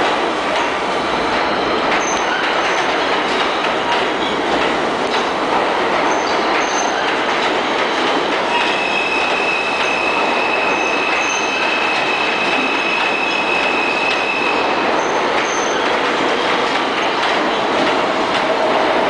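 New York City Subway L train running past on the station track, a steady loud rumble of steel wheels on rails with rail-joint clatter. About halfway through, a steady high-pitched squeal sets in and lasts around six seconds.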